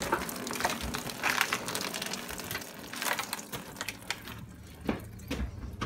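A string of wet, live black snapper on a rope stringer being handled and laid on a wooden board: rustling, slaps and knocks of fish and rope against the wood. The knocking is dense for the first few seconds, then thins to a few single knocks.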